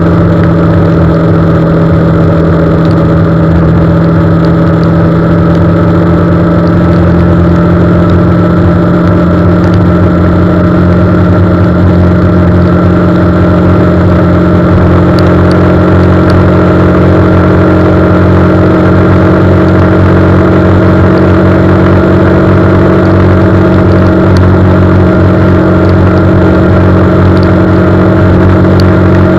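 Car running steadily on the road, heard from inside: a constant engine hum under road noise, its pitch creeping slightly higher over the stretch.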